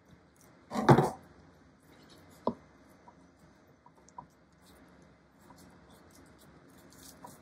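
Gloved hands pressing and smoothing soft modeling clay onto a plastic-sheet-covered board, giving quiet handling sounds. A brief loud noise comes about a second in, and a single sharp knock at about two and a half seconds, with a few faint ticks after it.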